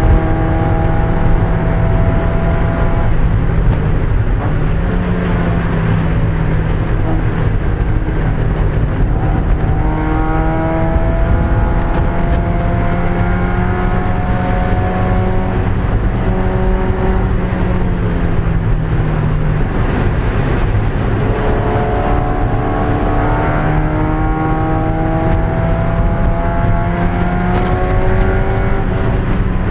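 1995 Mazda Miata's four-cylinder engine running hard in a race, its note climbing steadily under acceleration about ten seconds in and again past twenty seconds, dropping back in between, over a constant low drone of road noise.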